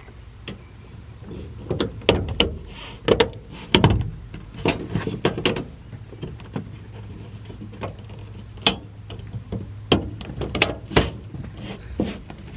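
Speaker grille being handled and fitted over a rear-deck speaker: irregular clicks, taps and knocks of the grille and hardware against the car's package shelf, about twenty of them, some louder and sharper than others.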